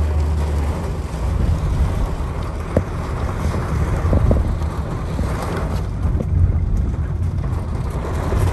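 A vehicle moving on a rain-soaked road, heard from inside the cabin: a steady low rumble of engine and road noise, with a deeper engine hum for the first moment.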